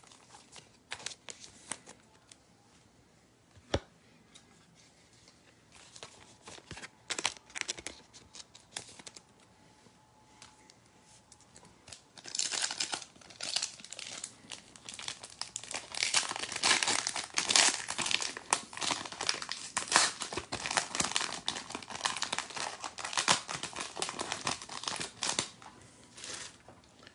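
A trading card pack being torn open and its wrapper crinkled, with cards handled. A few scattered clicks and rustles at first, then steady crinkling and tearing from about halfway through.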